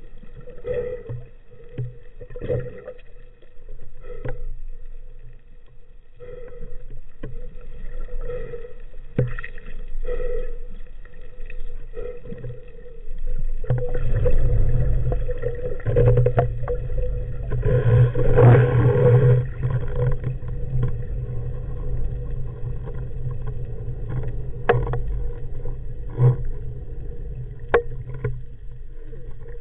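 Muffled underwater sound: water noise with a steady low hum and scattered sharp clicks, swelling louder for a few seconds around the middle.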